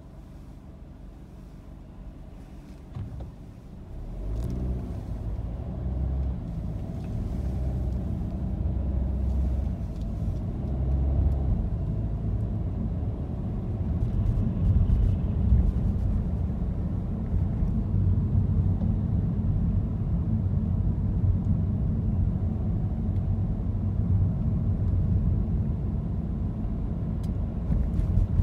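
Car pulling away from a standstill: quiet engine idle at first, then about four seconds in the engine note rises as it accelerates. It settles into a steady low rumble of engine and tyre noise while cruising.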